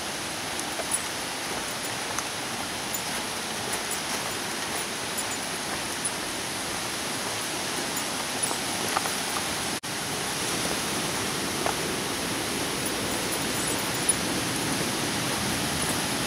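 Steady rush of falling water from a nearby waterfall, with a few faint scattered clicks; the sound cuts out for an instant about ten seconds in.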